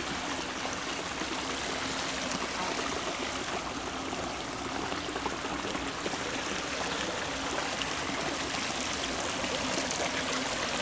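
Water running and trickling steadily, with a faint steady hum underneath.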